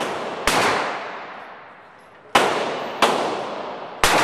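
Four shots from a Glock 17 Gen4 9mm pistol. There is one shot about half a second in, then after a pause three more in quick succession, about 0.6 to 1 s apart. Each is a sharp crack followed by a long echoing tail.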